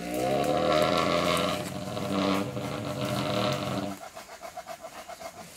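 Asian elephant giving a low, drawn-out rumble for about four seconds that rises in pitch as it begins and then cuts off. A quick, even pulsing follows near the end.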